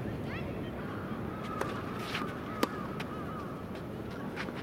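Tennis balls struck by rackets, a few sharp pops, the loudest about two and a half seconds in. A bird calls over them in a string of short arched calls.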